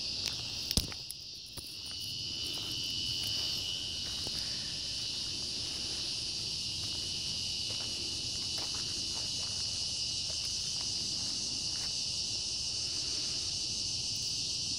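Evening chorus of crickets and other insects: a steady high-pitched trill throughout, with one sharper, even tone joining about two seconds in. A single knock about a second in, and faint scattered ticks from footsteps and handling.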